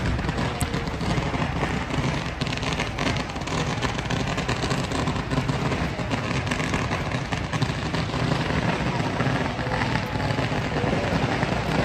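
Busy outdoor street-parade ambience: many voices talking together over a steady low rumble, with no single sound standing out.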